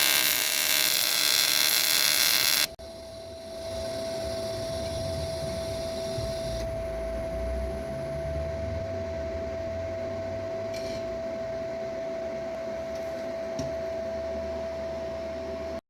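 TIG welding arc on aluminium buzzing loudly, then cutting off abruptly about three seconds in. After it, a quieter steady high tone and a low hum carry on.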